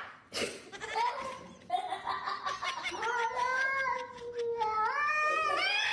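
A cat yowling in long, wavering calls that overlap and climb in pitch near the end, with a brief sharp knock just after the start.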